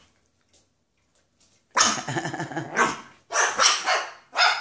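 Dogs barking and growling in play: a loud run of barks starting a little under two seconds in, then several shorter barks near the end.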